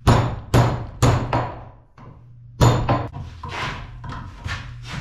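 Hammer blows on thin steel strips being bent into letter shapes: four loud, ringing strikes in the first three seconds, then lighter knocks and taps.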